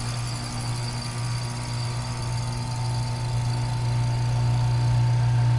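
Carrier Comfort 15 heat pump outdoor unit running with a steady compressor hum and a faint high whine, around the end of a defrost cycle. The hum grows slightly louder about four seconds in.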